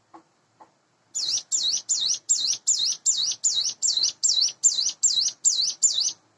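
Ciblek gunung (a prinia) singing a fast, loud series of about fourteen identical high notes, roughly three a second, each a quick down-and-up sweep in pitch. The song begins about a second in, after two faint clicks, and stops just before the end.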